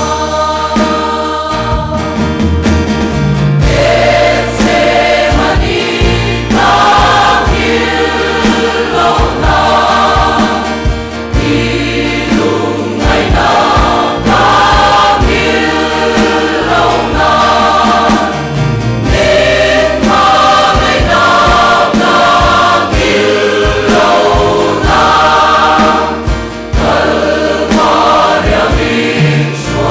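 Large mixed choir of men and women singing a hymn in Mizo in several voice parts, with sustained low notes beneath.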